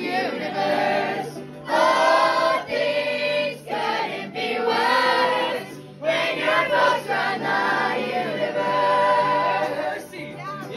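A group of teenagers singing together in phrases with short breaks, with strummed acoustic instruments (banjo and guitar) playing along.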